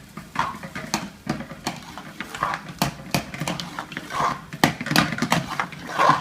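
Metal spoon or ladle knocking and scraping against a cooking pan as butter chicken sauce is stirred: irregular clicks and knocks, busier in the second half.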